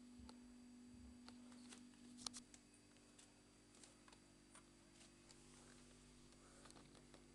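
Beko WMA1510W washing machine running very quietly: a steady low hum that drops in level about two and a half seconds in, with scattered light clicks and ticks.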